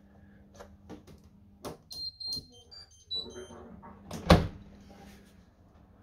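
Hoover tumble dryer at the end of its cycle: a few clicks at the door, then a short electronic beep tune of several notes from the control panel. A loud thud about four seconds in as the door is pulled open.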